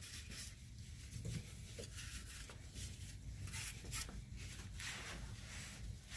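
Faint, scattered scuffing and rustling, a handful of short noisy strokes, from hands and tools working under a car.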